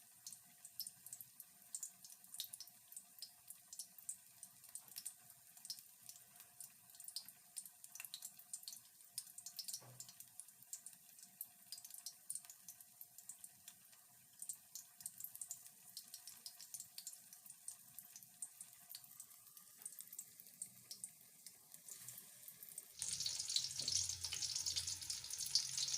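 Faint scattered ticking and crackling over a faint steady hum. About 23 s in, loud sizzling begins as battered stuffed vegetables fry in hot oil.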